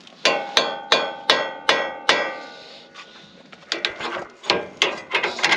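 A hammer strikes steel on a truck's tie rod and steering knuckle, six ringing metal blows about 0.4 s apart, followed by lighter, irregular taps and clicks near the end.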